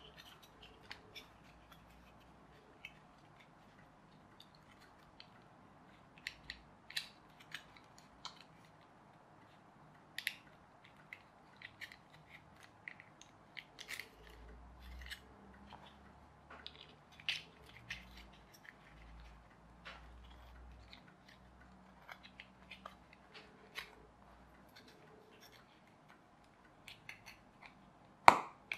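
Small plastic parts of a pullback toy car kit being handled and pressed together: scattered faint clicks and taps, with a sharper click near the end.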